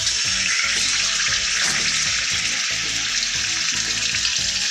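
Raw chicken slices sizzling in hot olive oil in a wok, a steady loud hiss that starts and cuts off abruptly.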